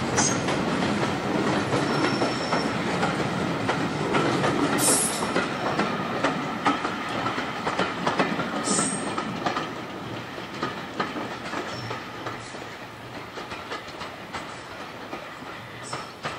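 A train running past on jointed track, its wheels clicking over the rail joints, fading away over the last several seconds.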